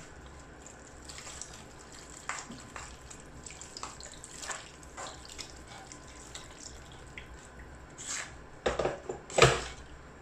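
Water poured from a jug into a clay pot of vegetable curry, with a ladle stirring through it, adding water to simmer the vegetables. Scattered clicks of the ladle against the clay pot, with a few louder knocks near the end.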